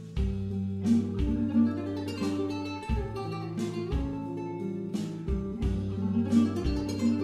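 Background music: acoustic guitar, plucked and strummed over recurring bass notes, in a Latin, flamenco-like style.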